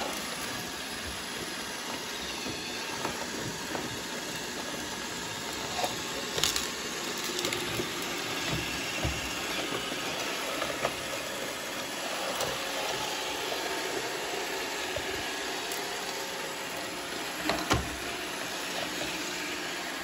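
iRobot Roomba 677 robot vacuum running on a hard floor, a steady whirring hiss of its brushes and suction motor, with a few sharp knocks, the clearest about six seconds in and again near the end.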